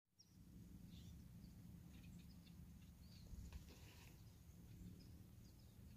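Near silence: a faint low outdoor rumble with scattered short, faint bird chirps.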